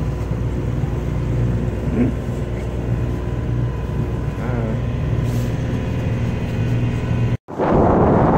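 Sailboat's engine running steadily under way, with a few faint voices. Near the end a cut brings loud wind buffeting the microphone.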